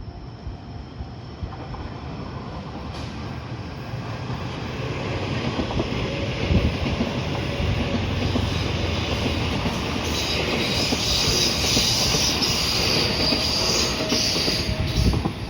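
Electric train passing at a level crossing: a rumble of wheels on rail that builds over several seconds, joined about ten seconds in by a high-pitched squeal from the wheels, then drops sharply near the end.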